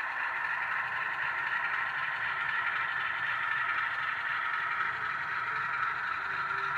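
Heljan model Class 47 diesel locomotive running out of the station with its coaches: a steady sound of its Sulzer diesel engine from the model's sound fitting, mixed with the rattle of its wheels on the track.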